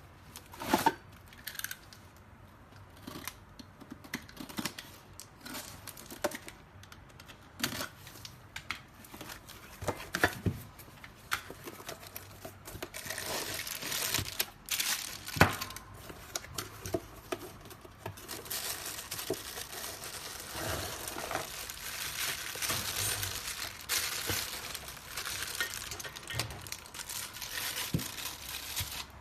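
Packaging being handled: crinkling and tearing, with scattered sharp knocks and clicks. The crinkling becomes nearly continuous from about halfway through.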